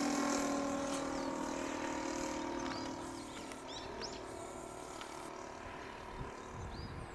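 Saito FG-40 single-cylinder four-stroke gasoline engine of a large RC model plane droning in flight, its note fading over the first three seconds and then staying faint. Several short high chirps, like a small bird's, come through in the middle.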